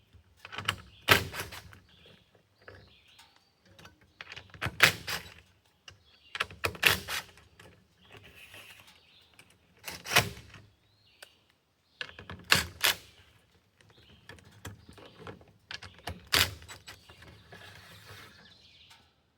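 Sharp clicks and snaps, mostly in close pairs, every couple of seconds: clamps and wire ties being cut and pulled off plastic maple sap tubing.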